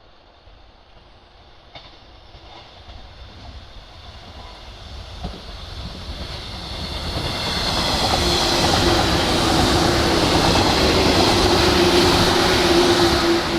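A train approaching and passing close by: it grows steadily louder over about eight seconds and then stays loud, with a steady tone coming in as it draws alongside.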